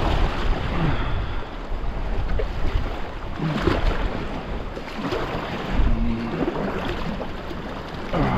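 Wind rumbling on the microphone over sea swell washing around a kayak beside rocks.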